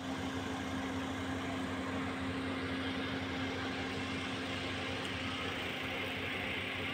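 A steady motor hum with one constant low tone, unchanging throughout.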